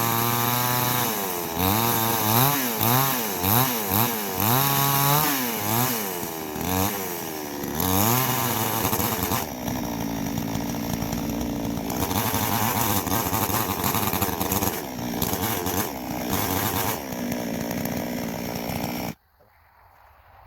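Chainsaw revving up and down repeatedly, then running steadily under load as it trims bumps off a sill log. It cuts off suddenly near the end.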